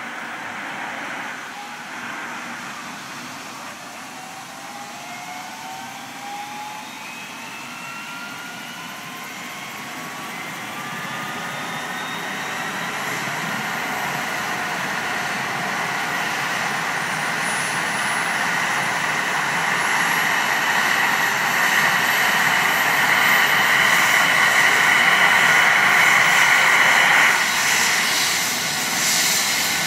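Eurocopter EC135 rescue helicopter starting up on the ground: the turbine whine climbs steadily in pitch and grows louder as the engines spool up and the rotor comes up to speed, then holds steady, and part of the whine drops away suddenly a few seconds before the end.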